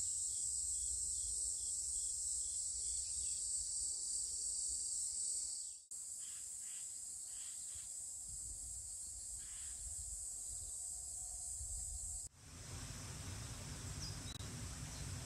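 A steady, high-pitched insect chorus, broken abruptly twice, about 6 s and 12 s in. After the second break a low, even rushing noise runs under the insects.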